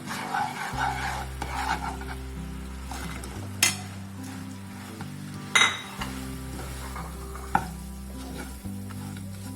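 A spatula stirring food sizzling in a frying pan, with three sharp clinks of the utensil against the pan.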